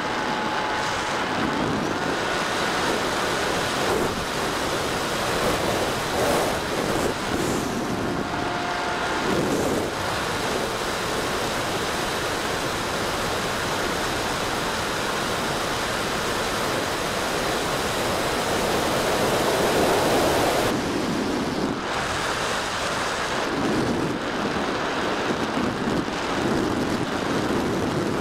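Airflow rushing over the onboard camera's microphone of a Bixler 3 RC glider in flight: a steady rushing noise that swells and eases, loudest about twenty seconds in. A few faint, brief whines sound in the first ten seconds.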